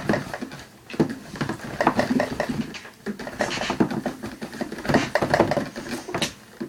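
A person's voice making wordless vocal noises in several short stretches.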